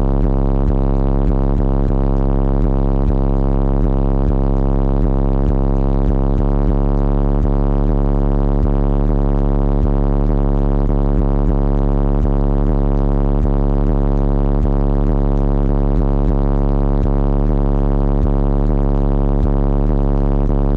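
Car-audio subwoofers in a DC Audio build playing one deep bass tone at high level, held without change, with a buzzy stack of overtones and frequent small clicks or rattles through it.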